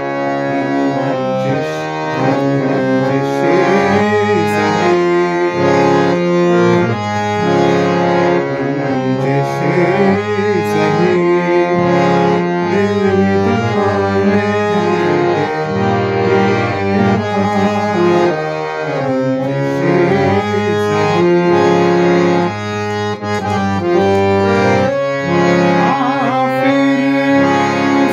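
DSR-style harmonium, hand-pumped, playing a continuous melody on its reeds, with several steady notes sounding together and changing every fraction of a second.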